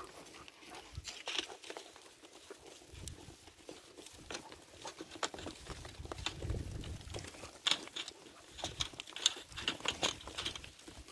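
Hooves of a flock of sheep pattering and clicking on a dry dirt track as they walk and trot along, with footsteps on the dirt mixed in. The clicks come irregularly and get busier in the second half.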